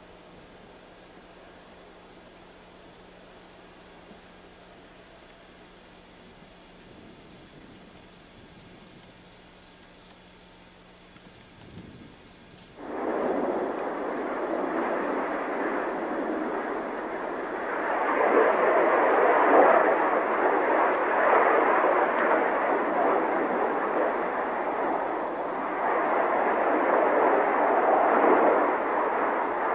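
Insects chirping in a quick, steady pulse. About 13 seconds in, the engine noise of a Blue Angels F/A-18 Hornet jet comes in suddenly and carries on to the end, swelling louder twice as the jet flies its display at a distance.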